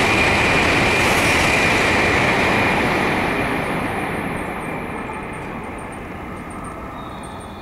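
N700-series Kyushu Shinkansen train passing through the station at about 260 km/h without stopping: a loud rushing roar with a high whine, fading away from about three seconds in as the train recedes.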